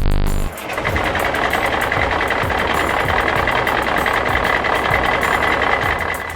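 Heavy vehicle engine sound effect running steadily, with a steady high whine over it; it takes over as music stops about half a second in.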